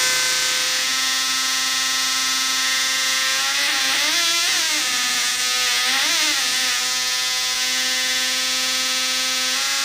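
Homemade optical theremin: two 555-timer astable oscillators with photoresistors, played through amplified PC speakers, giving a harsh electronic buzz of two pitches at once, a lower tone and a higher one. The pitch swoops up and back down twice near the middle as the light on the photoresistors changes, then holds steady.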